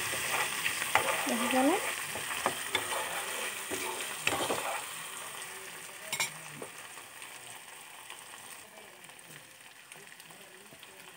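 Chopped garlic and ginger frying in hot oil in a steel kadai: a crackling sizzle with scattered sharp pops, loudest at first and fading gradually.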